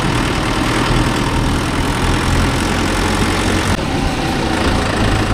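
Mahindra Yuvo Tech+ 585 tractor's diesel engine idling steadily at a standstill.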